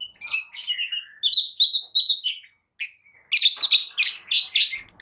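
Long-tailed shrike (cendet) singing a varied run of sharp chirps and whistled notes. After a brief pause, about two-thirds in, it breaks into a fast, dense chatter.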